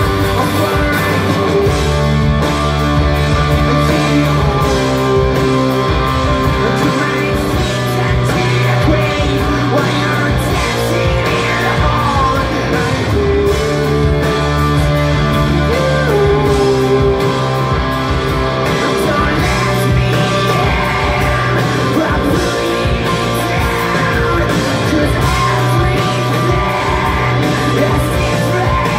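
Live rock band playing: distorted electric guitars, bass and drums with vocals, heard from the audience in a concert hall.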